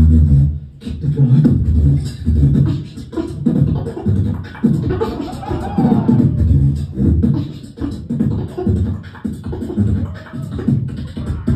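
Solo beatboxing amplified through a venue's PA, heard from the crowd: a rhythmic pattern of heavy bass hits and vocal percussion, with a sliding pitched vocal sound about five seconds in.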